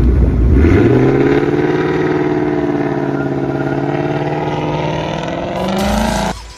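Ford Mustang GT's 5.0 Coyote V8 exhaust, revved and held at a steady high engine speed. It starts abruptly, climbs in pitch over the first second, rises a little again near the end, then cuts off.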